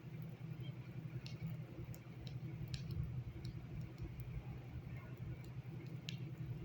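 A steady low hum with a few faint, irregular clicks and ticks scattered through it, loudest about three seconds in and again near the end.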